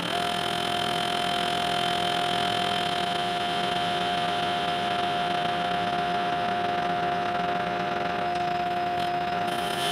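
Metal lathe running under a facing cut, its tool cutting across the end of a ductile iron bar: a steady whirring with a steady thin whine held throughout.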